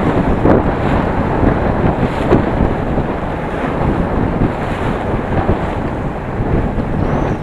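Strong wind buffeting the microphone on a sailboat under way, gusting up and down, with a wash of water underneath.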